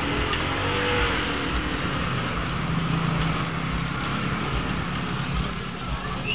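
Steady sizzling of takoyaki frying in a gas-fired takoyaki pan, mixed with a motor vehicle engine running that grows louder about halfway through.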